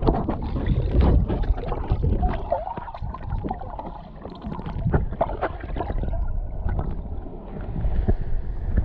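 Water splashing and sloshing from swimming strokes close to the microphone: irregular splashes over a constant low rumble.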